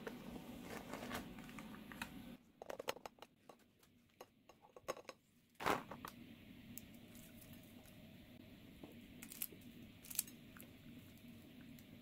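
Parchment paper crinkling and rustling as it is slid out from under a microwaved banana pancake, then a plastic snack bag rustled, with one sharp rustle a little before the middle. After that come a few scattered light ticks as sliced almonds are dropped onto the pancake.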